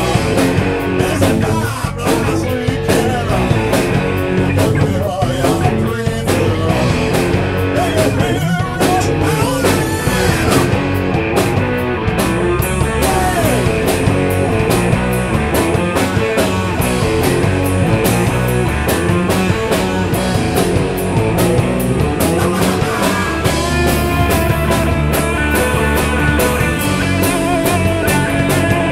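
Rock band playing a song live in the room: electric guitars, bass and drum kit together, steady and loud throughout.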